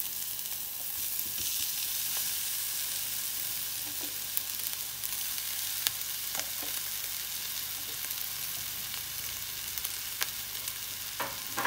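Oil sizzling steadily in a nonstick frying pan under a tempering of onion, green chilli and curry leaves as grated boiled potato is dropped in, with a few light ticks.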